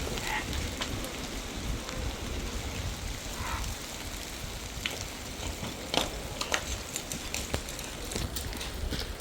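Wind buffeting the microphone, with scattered clicks and crackles throughout.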